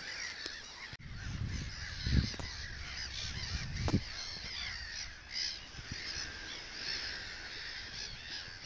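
A flock of birds calling, many short overlapping calls throughout, with a couple of low bumps about two and four seconds in.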